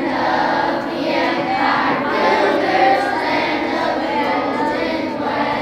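A large group of school children singing together as a choir.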